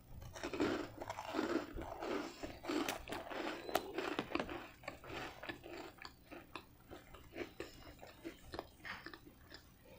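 Close-miked biting and chewing of extra well-done, crunchy garlic bread dipped in ranch. A dense run of crunches comes first, then thins to sparser chewing clicks toward the end.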